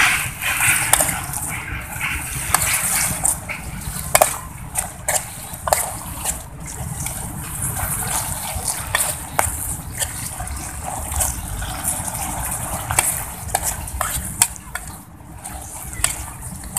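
Metal spoon scraping and clicking irregularly against a small aluminium pot as wet oyster mushrooms and chilies are stirred, with the food sloshing in its liquid.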